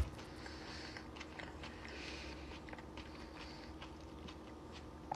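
Faint close-mouthed chewing of a mouthful of rice salad, with small soft ticks every so often over a steady low hum.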